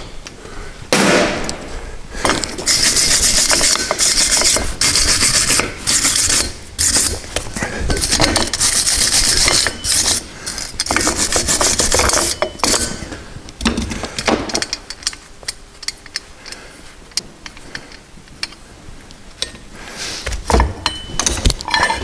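Hand wire brush scrubbing the exhaust adapter pipe around the newly welded Lambda sensor boss, a scratchy rasping in repeated strokes that stops about two thirds of the way in. A few metal knocks follow near the end.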